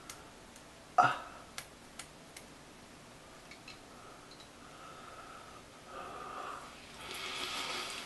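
Fingernails scraping zombie wound makeup off the skin of the temple and out of the hair: a few small clicks and soft scratching, with a short grunt about a second in and a louder rush of hiss near the end.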